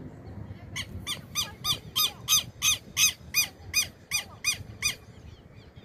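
An animal calling in a rapid series of about a dozen short, clear notes, each rising and falling in pitch, about three a second. The calls grow louder and then fade away.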